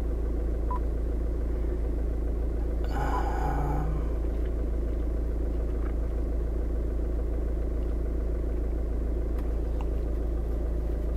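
Skoda Octavia Mk2's engine idling, heard from inside the cabin as a steady low rumble. A short noise about three seconds in.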